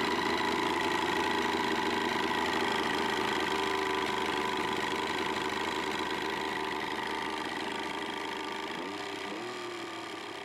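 1984 Johnson 70 hp three-cylinder two-stroke outboard running, with a pretty substantial internal rattle that the owner calls a death rattle and guesses is piston skirt slap or a failing connecting-rod bearing. The running fades gradually toward the end.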